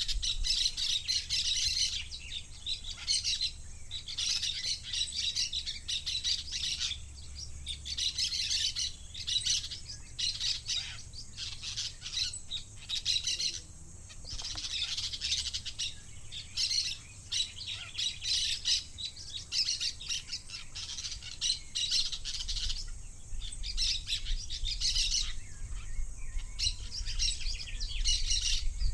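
Budgerigar chirping and warbling in quick, high-pitched runs, broken by short pauses every second or two.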